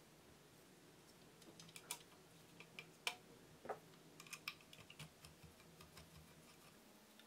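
Scattered small clicks and taps of a screwdriver, screw and 3D-printed plastic parts being handled while a DC motor is screwed onto a plastic frame, the sharpest click about three seconds in, over near silence.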